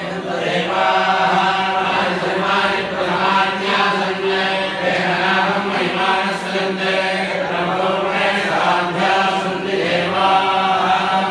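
A group of men chanting Hindu mantras together during a temple ritual, many voices over a steady low tone.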